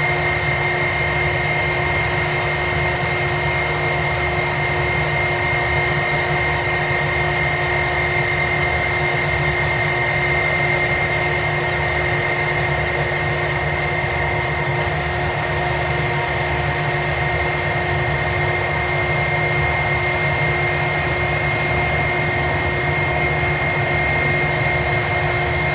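Jet airliner engines running steadily at idle: a constant whine of several fixed tones over a low rumble, unchanging throughout.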